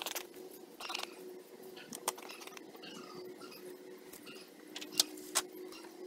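Scattered light clinks and jangles, like keys or small metal gear jingling as a person walks about. The sharpest two come about five seconds in, over a faint steady hum.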